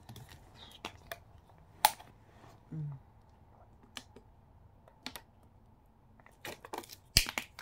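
Scattered sharp clicks and crackles of a thin plastic water bottle being handled and drunk from, the loudest a little under two seconds in and a quick cluster near the end. A brief low hum of a voice about three seconds in.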